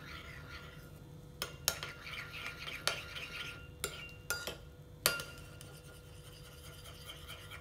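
Metal teaspoon stirring thin cream in a ceramic bowl: a soft scraping, with several sharp clinks where the spoon knocks against the side of the bowl.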